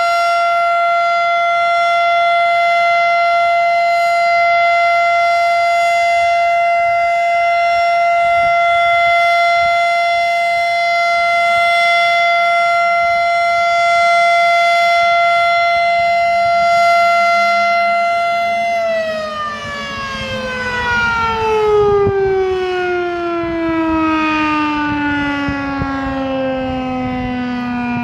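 Federal Signal Model 7 outdoor warning siren sounding a steady alert tone at one held pitch. About 19 seconds in it shuts off and begins to wind down, its pitch sliding slowly lower and still falling at the end.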